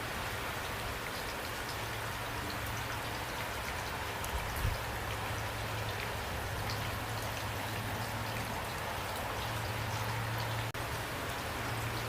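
Steady rain falling, with individual drops ticking through an even hiss and a low steady hum beneath it. The sound cuts out for an instant near the end.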